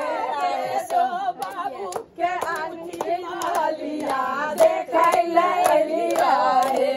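A group of women singing together, with hand claps going along with the song.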